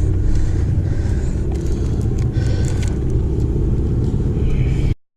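Car driving, with a steady low rumble of engine and road noise that cuts off abruptly near the end.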